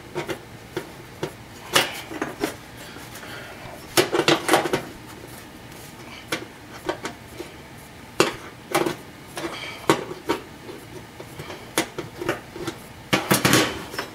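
Adjustable wrench clinking and knocking against the terminal nut and the sheet-steel wall of the oven as it turns the bake element's terminal nut, in scattered metal clanks. Near the end there is a louder clatter as the wrench is set down on the oven floor.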